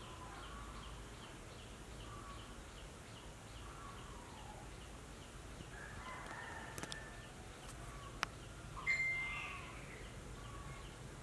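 Quiet background of bird calls, with a faint high chirp repeating about four times a second, two sharp clicks past the middle, and a short, louder call near the end.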